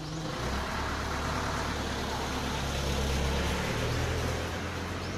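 A vehicle engine running, a steady low drone with a hiss over it; its pitch steps up a little about three and a half seconds in.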